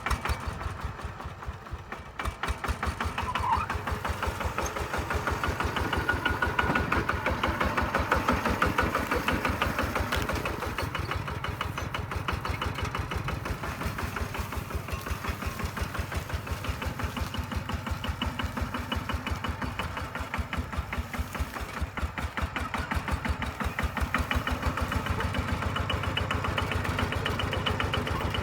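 Kubota single-cylinder diesel engine of a walk-behind tractor running under work with a rapid, even knock of firing strokes, getting louder a few seconds in and again near the end.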